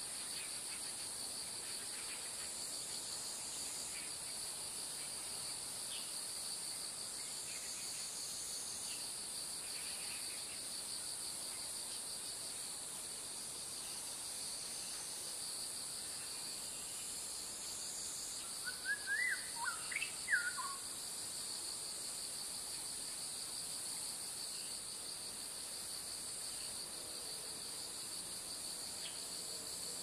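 Steady chorus of insects trilling high at two pitches. About two-thirds of the way through, a bird calls briefly with a few quick chirping notes.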